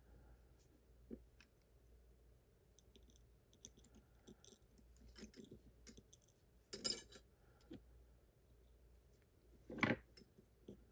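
Small metal lock parts clicking and clinking as pins and springs are taken out of a lock cylinder: scattered faint ticks, with louder clinks about seven seconds in and again near the end.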